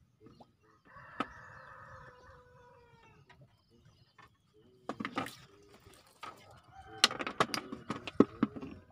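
A rooster crowing once in a long, slightly falling call, followed later by a louder run of sharp clicks and knocks near the end.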